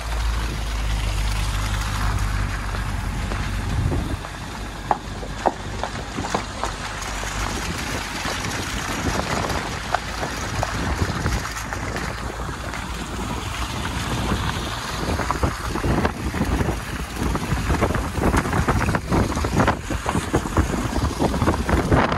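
Wind rushing over an outside-mounted microphone on an SUV driving a snowy dirt track, together with tyre noise and scattered knocks and ticks against the bodywork that come more often in the second half. A low engine hum is heard at first and fades away about four seconds in.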